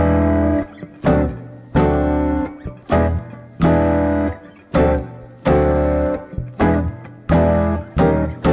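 Background music: an instrumental led by plucked guitar chords struck about once a second, each ringing out and fading, over a bass line.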